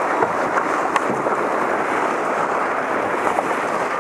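Whitewater of a river rapid rushing steadily around a racing kayak, with a few light splashes from paddle strokes.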